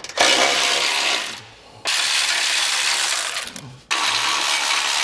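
Cordless electric ratchet spinning out 15 mm bolts from a tow hook support, running in three bursts of one to two seconds each.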